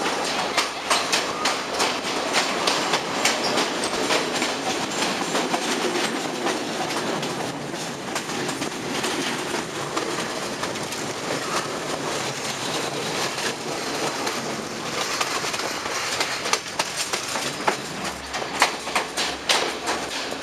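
Passenger train running along the track, its wheels clattering over rail joints over a steady rumble, heard from a carriage window. The clatter is sharper and denser near the start and again near the end.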